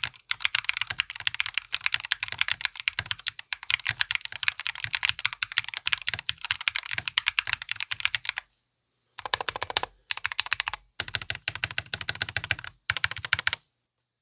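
Typing on a mechanical keyboard with Gateron Beer tactile switches and Regeneration keycaps in a foamless walnut GK64x case. Rapid, continuous keystrokes run for about eight seconds, then stop briefly and come back in three shorter bursts.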